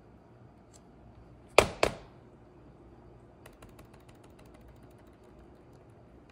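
Two sharp knocks about a quarter second apart from a laptop being handled, followed from about halfway through by a run of light clicks of laptop keys being pressed.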